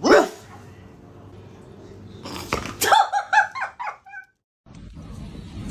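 A small dog giving a quick run of short, high-pitched yips just after a couple of knocks or clatters.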